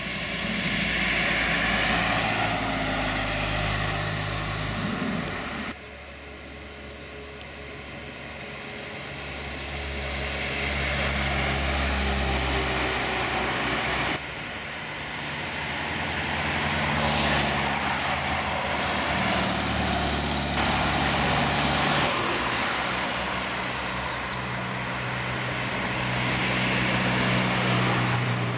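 Classic cars driving past one after another, among them an Alfa Romeo Spider, a Volkswagen Beetle and a Mercedes-Benz 190 SL roadster: engine note and tyre noise swell as each car approaches and passes. The sound changes abruptly twice, once about six seconds in and again about halfway through.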